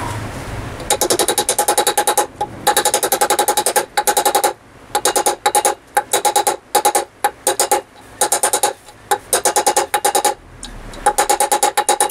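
Rapid hammer blows on steel, about eight to ten a second in bursts with short pauses, each with a ringing metallic note: a new wheel bearing being driven into a motorcycle wheel hub through an old bearing race used as a driver.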